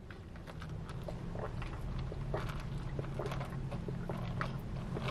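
Quiet sipping of iced tea through a plastic straw, with small swallowing and mouth clicks scattered through, over a low steady hum.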